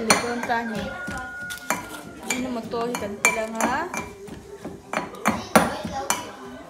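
A lid being taken off a jar of salt, then a plastic measuring spoon clicking and scraping against the jar as salt is scooped out, with several sharp clinks and knocks.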